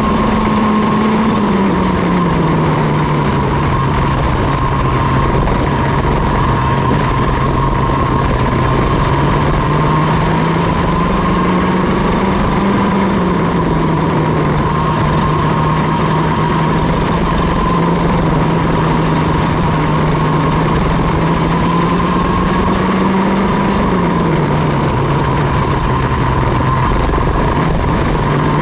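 Mini ROK kart's 60cc two-stroke engine at racing speed, heard from on board, its note dropping and climbing as the kart brakes into and accelerates out of corners: it drops about two seconds in, climbs around twelve seconds and again just before the end, falling back after each.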